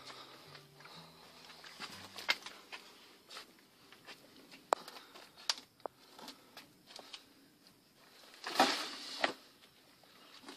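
Scattered scuffs, clicks and knocks of hiking shoes and a backpack against rock as a hiker squeezes through a narrow rock crevice, with a louder rustling scrape about eight and a half seconds in.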